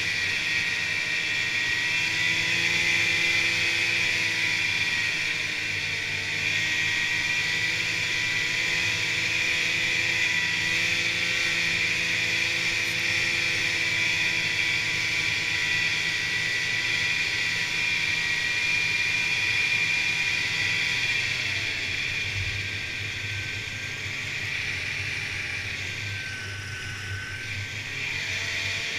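Snowmobile engine and track running steadily at trail speed, heard from the rider's seat, easing off for a few seconds near the end.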